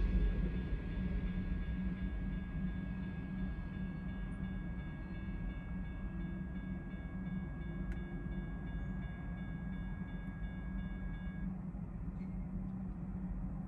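Tail end of an intermodal freight train rolling past a grade crossing, its rumble dying away in the first couple of seconds. The crossing bell keeps ringing while the gates go up, then stops about three-quarters of the way through; a steady low hum stays underneath.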